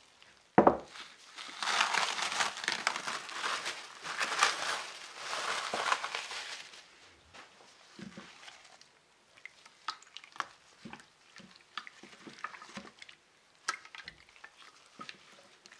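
A ceramic baking dish set down on a wooden table with a sharp knock, followed by about five seconds of crinkling rustle. After that come soft wet squelches and slaps as gloved hands turn a marinated pork neck in the dish.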